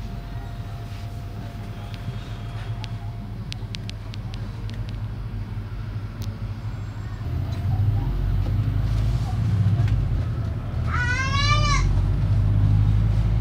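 Bus engine rumbling low while the bus waits, then growing louder about eight seconds in as the bus pulls away. Near the end comes one short, wavering, bleat-like call.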